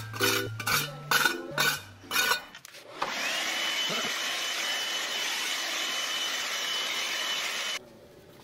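Background music with a beat for the first couple of seconds. Then a handheld electric blower starts about three seconds in, its whine rising quickly and holding steady as it blows broken tile dust and grit off a concrete balcony floor. It shuts off suddenly near the end.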